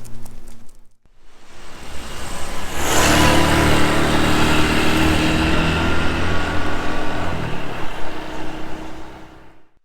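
A motor vehicle passing: its engine and road noise build up, stay loud for a few seconds, then fade away.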